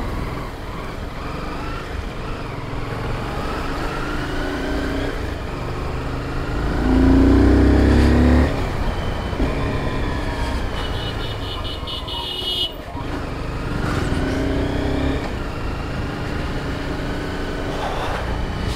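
Honda sport motorcycle's engine running on the move, with wind noise, its pitch rising and falling with the throttle. It gets louder for about a second and a half around seven seconds in. A rapid high-pitched pulsing comes in briefly around eleven seconds in.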